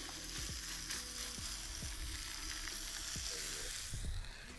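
Beef burger patties sizzling in a hot dry frying pan, a steady hiss that fades near the end.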